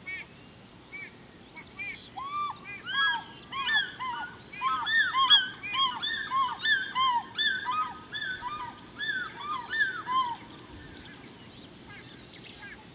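A flock of geese calling: many short, overlapping calls that build up about two seconds in, are loudest around the middle, and die away about three seconds before the end.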